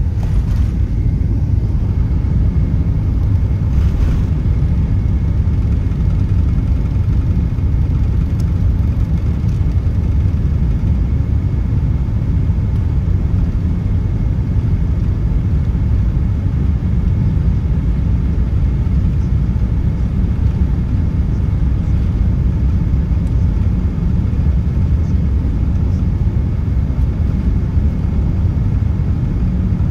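Steady, loud low rumble inside the cabin of an Airbus A380 moving along the runway: jet engine noise and the wheels rolling, holding even without a rise or fall.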